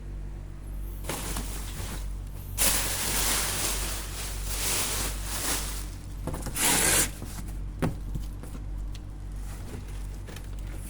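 Rustling and rubbing from things being handled and shifted while searching for the fridge's power cable, in several bursts with the loudest about six to seven seconds in. A short sharp knock comes about eight seconds in, over a steady low hum.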